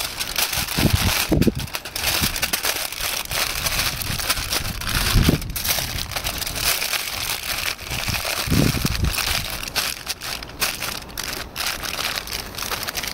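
Aluminium foil lined with greaseproof paper crinkling and crumpling as it is folded and pressed by hand into a food parcel, with a few low thuds.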